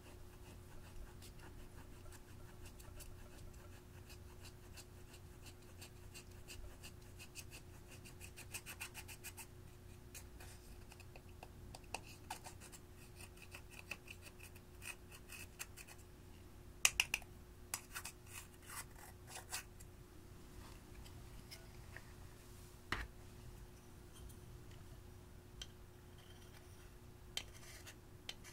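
Metal spatula scraping and breaking up pressed powder eyeshadow in its compact: a rapid, gritty scratching, with sharper clicks and taps of the metal tool against the pan past the middle.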